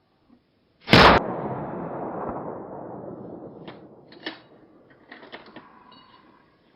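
A single loud gunshot about a second in, its echo rolling away and fading over the next three seconds, followed by a few faint clicks.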